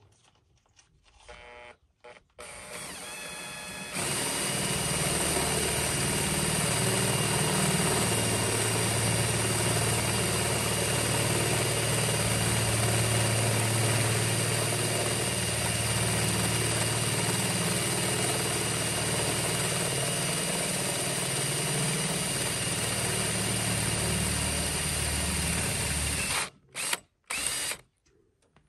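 18V cordless drill spinning a cone step bit into the truck's sheet-metal roof: a steady whine that jumps to full speed about four seconds in and runs for some twenty seconds. It then stops, followed by two short bursts near the end.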